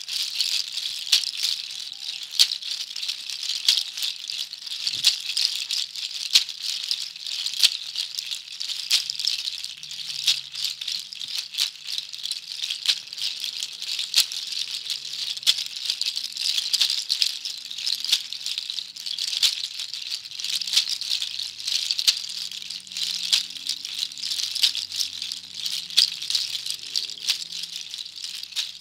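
Rattles shaken continuously in a dense, steady shake, with regular stronger accents. Faint low notes sound underneath from about a third of the way in.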